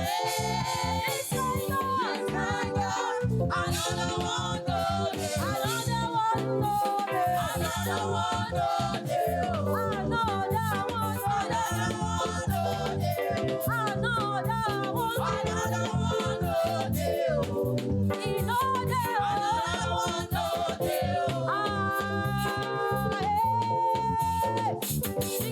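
Live church praise-worship music: a band playing a steady dance beat with a gliding melody line and singing over it.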